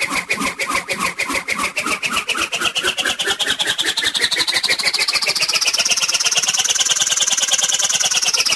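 Cartoon whoosh sound effect: a fast fluttering whir whose pulses speed up while its high tone slowly rises in pitch, then begins to fall near the end.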